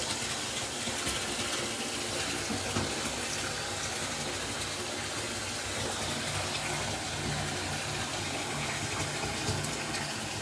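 Bathtub faucet running, water pouring steadily into the tub as a constant rush that starts and stops suddenly.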